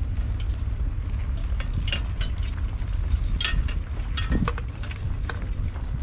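Harness and trace chains of a pair of heavy horses hitched to a horse-drawn plough clinking irregularly as the horses shift in place, over a steady low rumble.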